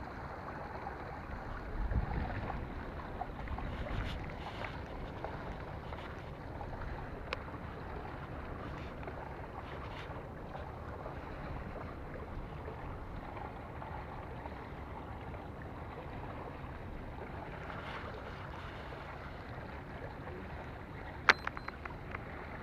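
Steady wind noise on the microphone with small waves washing against the rocks, and a few faint clicks. There is one sharp click near the end.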